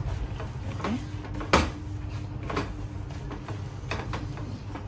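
A gloved hand kneading minced meat for kofta in a plastic bowl: a few irregular soft squelches and slaps, the sharpest about a second and a half in.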